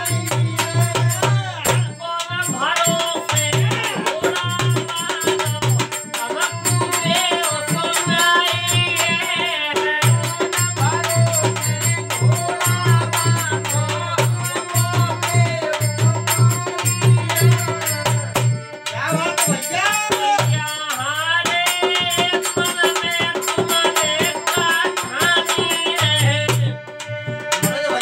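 Rajasthani Holi folk song performed live: a man singing to a harmonium and a dholak drum, with quick drum strokes under a steady low harmonium tone that drops out briefly twice.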